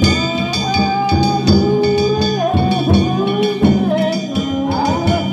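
Danjiri festival music: steady drum beats and the ringing of small hand gongs, with a held, wavering melody line over them.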